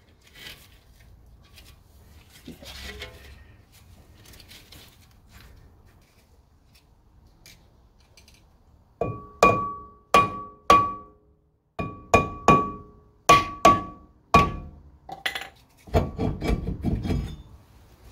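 A 1977 Corvette's rear vented brake disc struck about ten times with a mallet from about halfway through, each blow ringing with a clear metallic tone as the disc is knocked loose from the hub. Near the end, a second or so of scraping and clunking as the loosened disc comes off.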